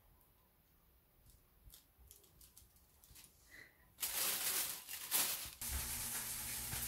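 Faint scattered clicks and crinkles of handling, then about four seconds in a sudden loud rustling burst lasting about a second and a half, followed near the end by soft background music over a steady hiss.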